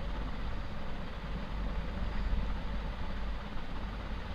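A steady low rumble with a hiss above it, even and unchanging throughout.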